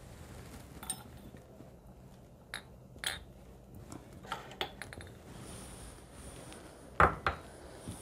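Dishes and cups clinking and knocking as they are handled and set down: scattered light clinks, some with a short ring, then two louder knocks close together near the end.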